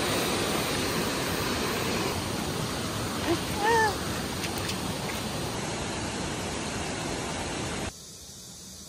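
Mountain stream rushing over rocks: a steady, even rush of water, with one short pitched vocal sound a little before halfway. Just under a second before the end it cuts suddenly to much quieter room tone.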